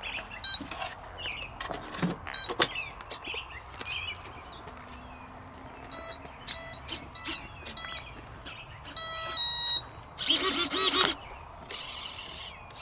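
Electronic beeps from an RC plane's speed controller, sounded through its electric motor after the 4S lipo is plugged in: short pitched beeps scattered through, with a run of several notes about nine seconds in. Clicks from handling fall between them, and two short whirring bursts come near the end.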